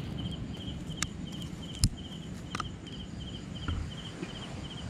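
A cricket chirping steadily in short pulsed bursts, about two to three a second. A few sharp clicks, the loudest just before two seconds in, and low rustling from handling sound over it.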